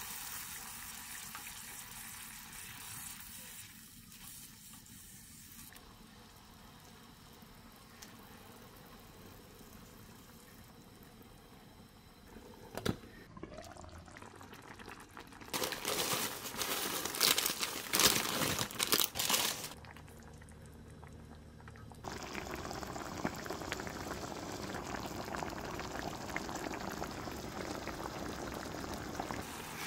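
Creamy sauce with chicken pieces simmering and bubbling in a pan. A few seconds of louder, uneven noise come in the middle, and the bubbling grows denser and steadier toward the end.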